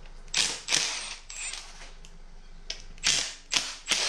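Cordless impact driver run in a series of short bursts, loosening the oil pan bolts on a flathead Ford V8.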